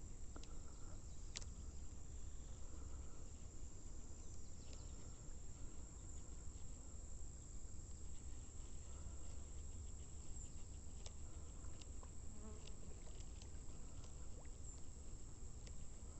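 Chorus of insects: a continuous, steady, high-pitched shrill buzz, over a low rumble and a few faint clicks.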